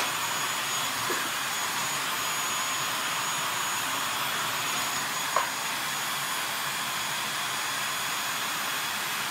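Corded stick vacuum cleaner running steadily, a hissing motor noise with a faint high whine. There is a short knock about a second in and a louder, sharp one about five seconds in.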